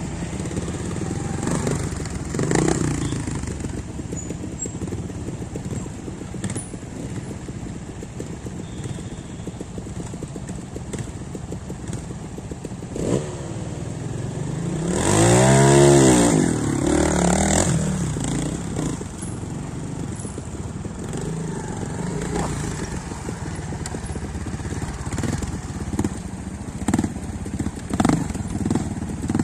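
Trial motorcycle engines running at low revs, with one loud rev about halfway through that rises and then falls in pitch.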